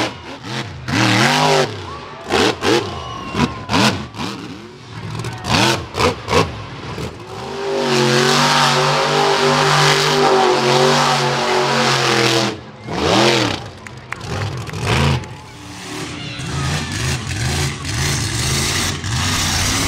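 Monster truck engine revving in short bursts, then held at high revs for several seconds near the middle, with repeated sharp bangs around it.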